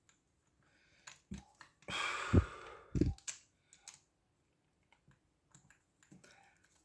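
Small metal clicks and knocks from a padlock and small tools being handled while the lock is taken apart. A short scraping rustle comes about two seconds in, followed by two dull thumps.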